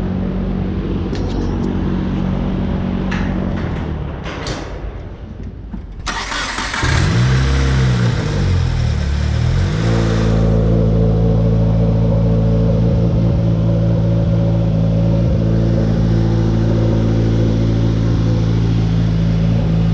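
2018 Subaru WRX's turbocharged 2.0-litre flat-four engine being started. After a quieter moment with a few clicks, it catches about six seconds in, flares up in revs and drops back, then settles into a steady idle.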